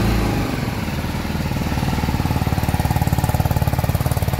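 BMW G 310 GS single-cylinder engine just started cold and idling fast, around 2,000 rpm, with a steady rapid exhaust pulse.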